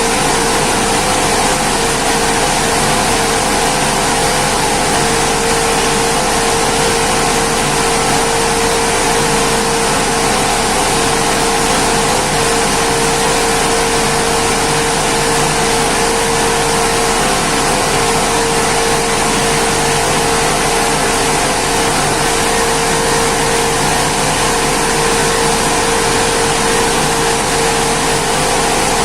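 Rice milling machine running steadily: a loud, even mechanical whir with a constant mid-pitched whine over it.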